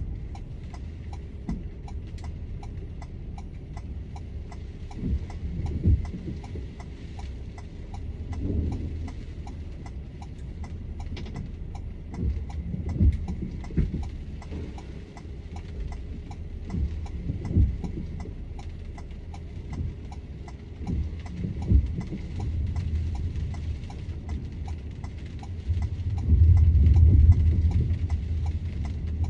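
A car's indicator flasher clicking steadily, about three ticks a second, with the car parked and the driver out, most likely with the hazard lights on. Under it runs a low rumble with scattered dull thumps, swelling louder near the end.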